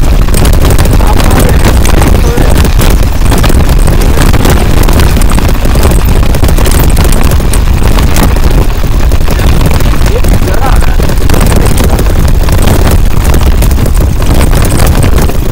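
Bicycle trailer rattling and rumbling loudly as it is towed over a bumpy road, a dense, constant clatter with a deep rumble underneath.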